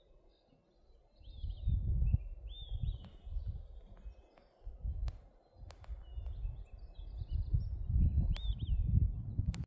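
Wind gusting against the microphone in low rumbles that come and go, with small birds chirping now and then.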